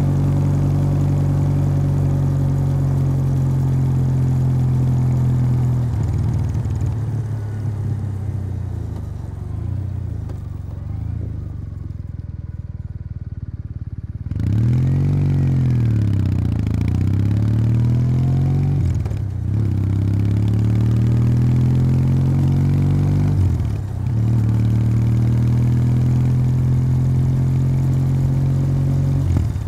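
Kawasaki W800's air-cooled parallel-twin engine through its stock exhaust, running steadily at cruise, then slowing and idling quietly for several seconds. It then pulls away, revs rising and falling through the gears with two brief dips at upshifts, and settles back to a steady cruise.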